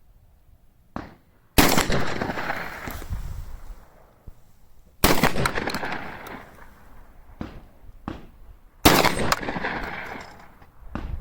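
Three shots from a Typhoon F12 12-gauge semi-automatic shotgun, about three and a half seconds apart, each followed by a long rolling echo. A few much fainter knocks fall between them.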